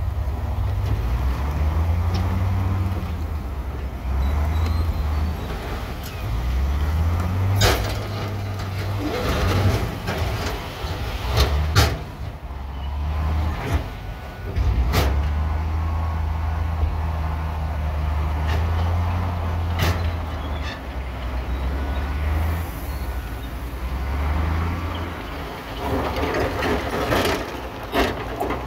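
Heavy diesel earthmoving machinery running under load, its low engine note rising and falling, with several sharp metallic bangs and clanks scattered through.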